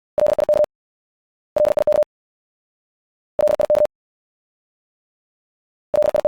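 Morse code at 70 words per minute: a single mid-pitched beep keyed in rapid dits and dahs with clicky edges, in short half-second groups separated by silent gaps of one to two seconds.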